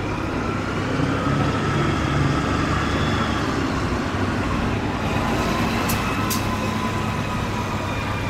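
Road traffic passing: a steady rumble and hiss of vehicles driving by, with faint shifting engine whines and two short clicks about six seconds in.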